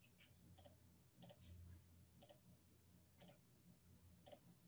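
Faint computer mouse clicks, five of them about a second apart, over near-silent room tone.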